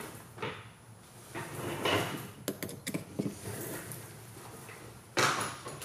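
A workshop drawer sliding and tools clattering as a tool is searched for: scrapes and sharp clicks, with a louder slide near the end.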